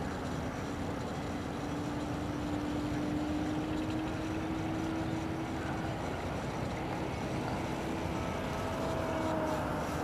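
Radio-controlled model airplane flying overhead: its motor and propeller make a steady hum that drifts slightly in pitch, with a higher tone joining briefly near the end, over a constant haze of wind noise on the microphone.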